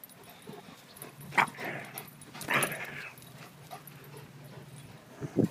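Great Dane puppies play-fighting, giving two sharp yips about a second and a half and two and a half seconds in, with quieter whimpering between them.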